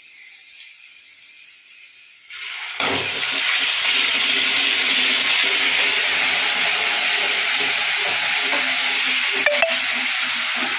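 Ginger paste going into hot oil and onions in a kadai: after a quiet start, a loud frying sizzle bursts up about two and a half seconds in and keeps on steadily, with a couple of light clinks near the end.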